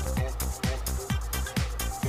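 Background music: an electronic dance track with a steady beat.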